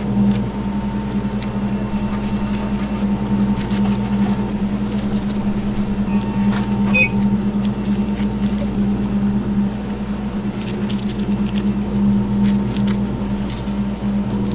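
Steady low mechanical hum with a faint higher tone above it, and a few light clicks scattered through.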